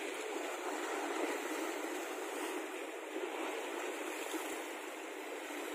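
Sea waves surging on the shore: a steady, even rush of surf.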